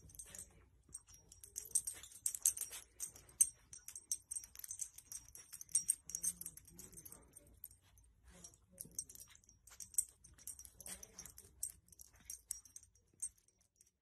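Faint, irregular jingling of a small dog's collar tags mixed with the rustle of a blanket as the dog noses about; the sounds stop shortly before the end.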